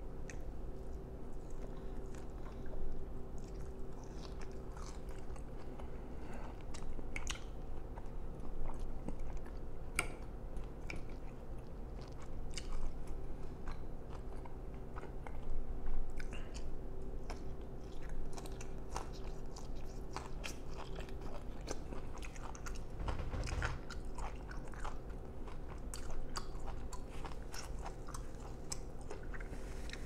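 Close-miked chewing and biting of steak and asparagus: irregular wet mouth clicks and soft crunches, with a louder bite about halfway through, over a faint steady hum.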